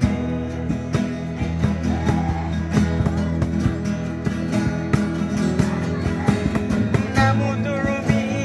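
Several acoustic guitars strummed together in a steady rhythm, playing a local gospel song. A young man's singing voice comes back in near the end.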